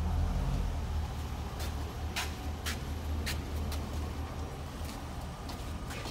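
Chevrolet SSR's 5.3-litre V8 idling steadily, with a few sharp clicks in the middle.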